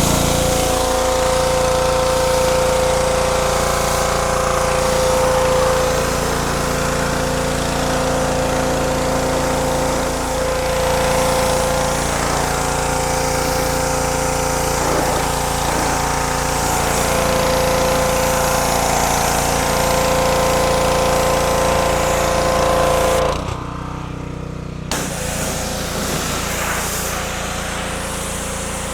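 Small gas engine of a PowerSmart 3200 PSI pressure washer running steadily, with a hiss over it. The hiss cuts out briefly about 23 seconds in.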